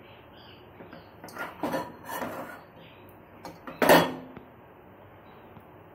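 Steel saucepan clattering on a gas stove burner as dough is scooped out of it: a few scraping knocks, then one loud, sharp metal knock about four seconds in with a brief ring.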